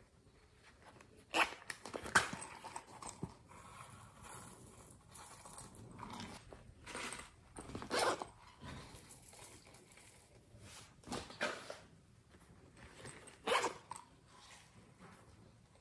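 Soft-plastic cartoon-figure pieces being handled and pressed onto glitter-and-sequin-topped slime: a scatter of light taps, clicks and sticky crackles, the loudest about two seconds in, about eight seconds in and near the end.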